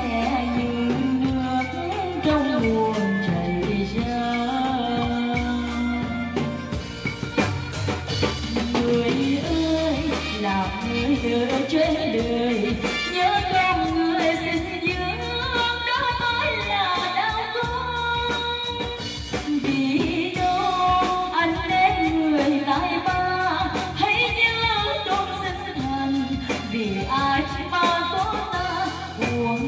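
A woman singing a slow Vietnamese song live into a microphone through a PA, accompanied by an electronic keyboard and a drum kit.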